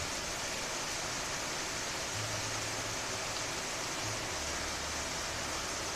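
Steady rain falling, an even, unbroken hiss of rainfall.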